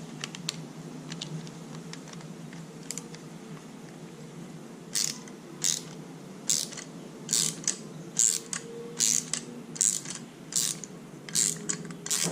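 Ratchet wrench with a hex bit clicking in short bursts on each backstroke, roughly once a second, while a rearset mounting bolt is run down. A few faint clicks come first, and the regular strokes start about five seconds in.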